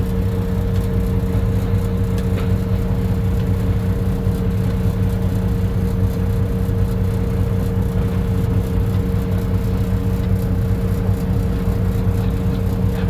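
Caterpillar 349 excavator's diesel engine running at a steady speed, a constant hum that holds its pitch throughout.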